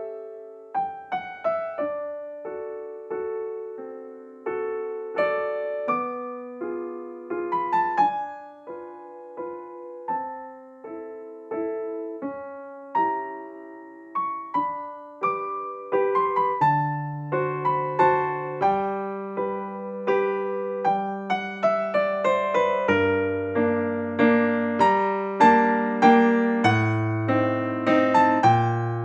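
Background piano music: a melody over chords, with a bass line coming in about halfway through and the playing growing fuller and louder toward the end.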